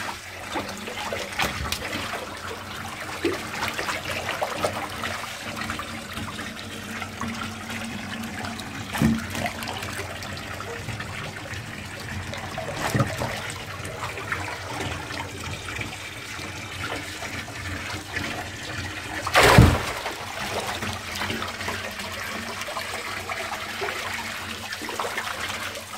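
Koi crowding and splashing at the pond surface over a steady churn of bubbling water, with a few sharper splashes and one much louder splash about three-quarters of the way through.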